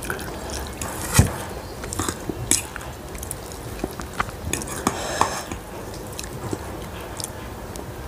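Metal fork clinking and scraping on a ceramic plate as it lifts stir-fried instant noodles, with close-up chewing and slurping mouth noises. A sharp clink about a second in is the loudest sound, followed by scattered lighter clicks.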